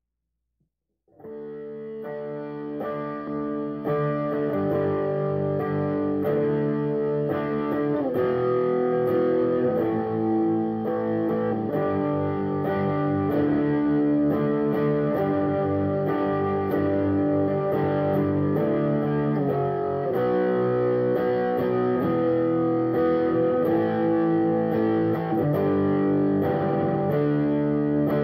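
Background music led by guitar, starting after about a second of silence and fading up over the next few seconds.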